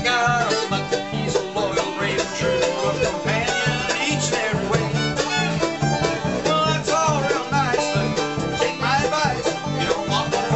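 Bluegrass band playing live on acoustic instruments: banjo, acoustic guitars and fiddle, over a steady driving rhythm with gliding melody lines.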